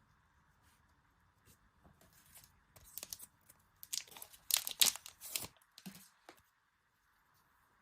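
Packaging being torn open and crinkled: a run of rasping tears, loudest about four to five seconds in, stopping about six and a half seconds in.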